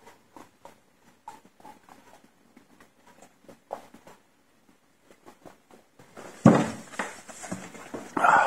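Cardboard product box being handled: scattered light taps and clicks, then from about six and a half seconds in a louder stretch of scraping and rustling.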